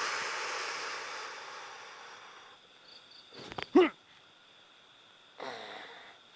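A man's long breathy exhale, then a short sharp voiced cry about three and a half seconds in, and a voiced sigh near the end. A faint steady high insect whine runs underneath.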